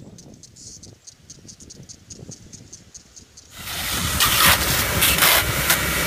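Periodical cicadas calling in short high pulses, about three a second. About three and a half seconds in, a shop vac starts up: a loud rushing suction noise over a low motor hum that drowns the insects.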